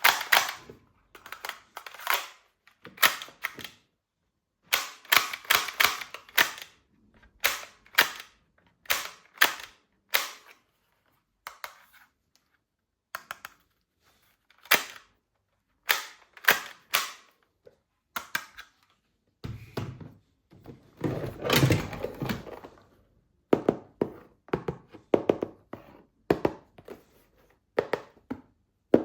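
Plastic toy guns clicking in quick bursts of two to five sharp clicks, with pauses between bursts. About two-thirds of the way through comes a longer stretch of denser rattling and handling noise.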